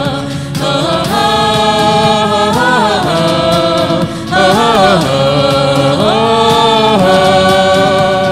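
A Vietnamese song performed with voices holding long sustained notes that bend in pitch between phrases, over instrumental backing, with a brief break about four seconds in.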